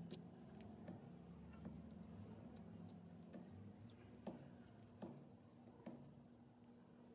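Near silence: a few faint, scattered light clicks and taps over a low steady hum.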